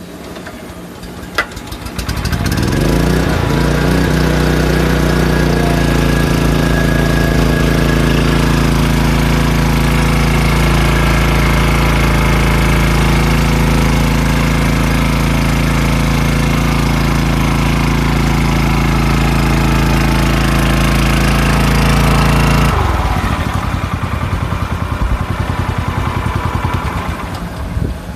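Kato Pump KF-50MX engine water pump, its small engine revving up about two seconds in and running at a steady high speed while pumping water out through the discharge hose. About 23 seconds in it drops back to a lower, rougher idle.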